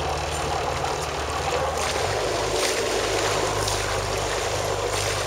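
A boat's engine running steadily, with water rushing and splashing along the hull. The engine's note changes about two seconds in.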